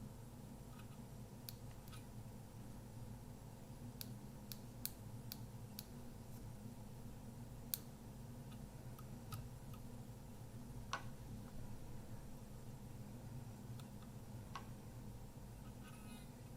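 Faint, irregular sharp ticks and snaps from a Kodak Ektar H35N half-frame camera's flash circuit, a dozen or so spread unevenly, over a steady low hum. The flash is trying to discharge but its damaged xenon tube only sparks instead of firing.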